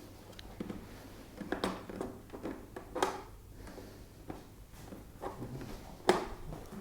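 Scattered clicks and light knocks of plastic air-conditioner parts being handled while their claw catches are worked loose, the sharpest knock about six seconds in.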